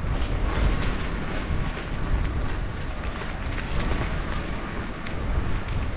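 Wind buffeting the microphone on a moving bicycle: a steady rushing noise with uneven low rumbling gusts.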